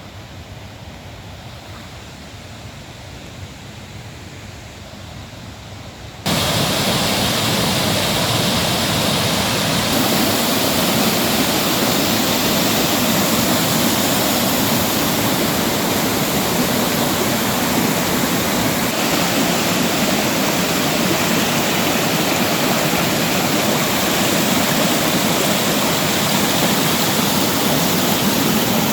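Steady rush of a waterfall, heard faintly for about six seconds, then suddenly much louder and close by, as a full roar of falling water.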